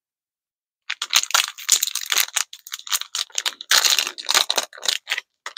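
Plastic snack wrapper of a pack of coconut crackers being crinkled and torn open: a dense, irregular run of crackling that starts about a second in.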